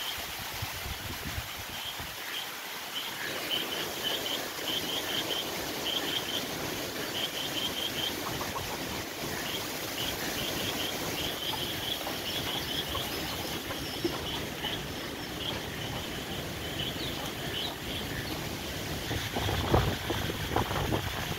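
Cyclone Remal's strong wind rushing through trees and palm fronds, a steady noisy rush. Short high chirps repeat through most of it, and near the end gusts buffet the microphone with a low rumble.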